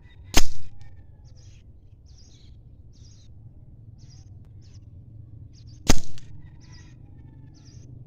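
Two shots from an Artemis P15 air rifle, each a sharp crack with a short tail, about five and a half seconds apart. Birds chirp faintly between them.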